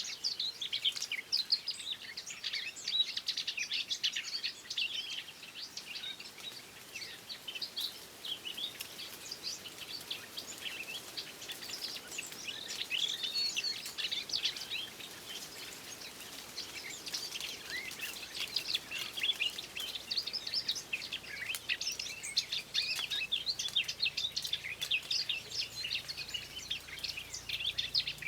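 Small songbirds chirping and singing in a dense, unbroken run of quick high chirps and trills.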